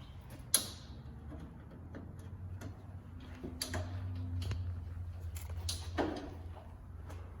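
Scattered clicks and knocks of a headlight assembly being handled and fitted into a pickup truck's front end, with one sharp snap about half a second in, over a steady low hum.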